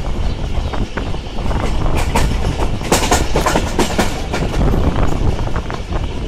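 Passenger train wheels running on the track, heard from an open coach door: a steady low rumble with rhythmic clattering, and a dense run of sharp clicks about two to four seconds in.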